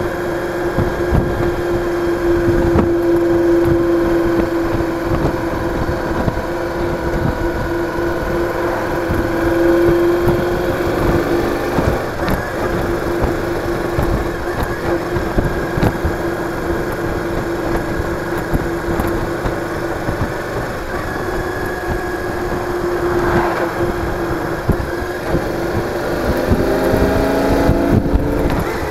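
Cruiser motorcycle's engine running at a steady cruising speed, with rumbling road and wind noise; a little before the end the engine note rises as it accelerates.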